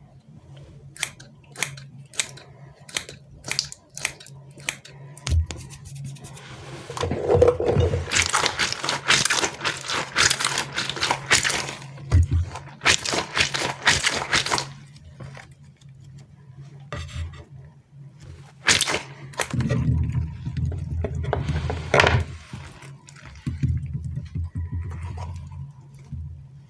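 Squishy stress toy filled with water beads being torn open and squeezed by hand: scattered sharp crackles at first, then a long stretch of dense crackling and crunching, and later wet squelching as the beads spill out.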